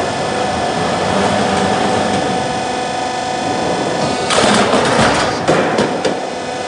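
Gearbox-driven high-speed roofing-sheet roll forming machine running, its rollers pressing coloured steel sheet into a trapezoidal profile: a steady mechanical hum with a held whine, and two louder rushes of noise about four and five and a half seconds in.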